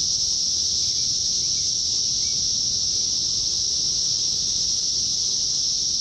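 Chorus of cicadas: a steady, high-pitched drone with no let-up.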